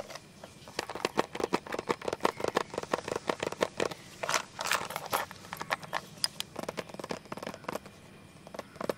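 Fingernails scratching and tapping on a hard plastic pencil box: a quick run of clicks and scrapes that thins out to scattered taps in the last few seconds.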